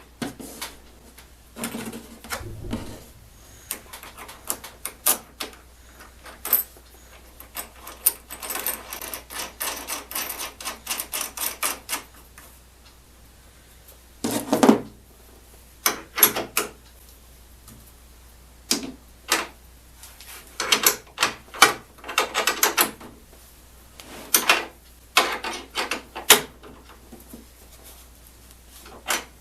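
Irregular knocks, clicks and clatter of hand work on bolts and door hardware, with a quick run of rapid taps about a third of the way in.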